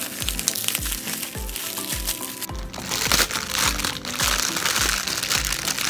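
Background music with a steady beat, with a plastic packet of string lights crinkling loudly as it is handled and opened from about three seconds in.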